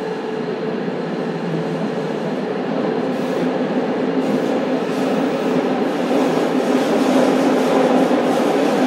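Running sound heard inside the passenger cabin of a JR Kyushu 305 series electric motor car: rumble of wheels on rail with steady motor tones, growing steadily louder.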